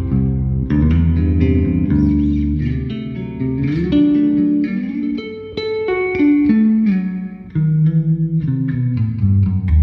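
Squier Bass VI, a six-string electric bass tuned an octave below a guitar, being picked through an amp. Low held notes and chords give way to moving single-note lines, with a short dip about seven and a half seconds in before the playing picks up again.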